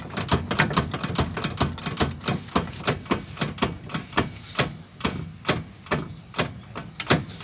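Front wheel of a Mercedes rocked by hand, knocking in a steady rhythm of about two to three clunks a second. The knocks come from play in the steering linkage at the tie rod end, a sign of wear that causes shake felt in the steering wheel.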